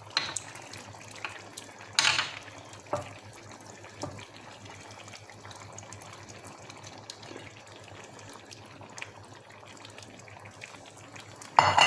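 Raw shrimp being laid into the paella pan one at a time, giving a few brief wet splats in the first seconds over a faint steady hiss. A louder clatter comes near the end.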